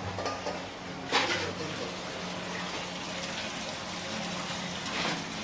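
A metal ladle scooping and pouring gravy in a large cooking pot, with a sharp splash or clank about a second in and another near the end, over a steady low hum.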